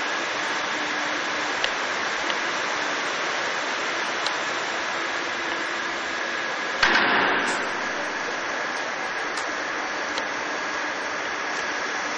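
Steady mechanical hum of an industrial waste shredder's machinery, with a few faint ticks and one sudden loud bang about seven seconds in that dies away over about a second.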